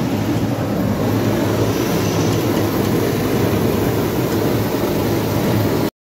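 Industrial brush-type potato washing machine running steadily, a loud, even mechanical hum and rush that cuts off suddenly near the end.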